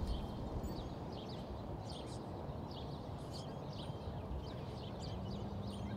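Outdoor ambience: birds chirping in many short calls over a steady low rumble, with a faint low hum joining near the end.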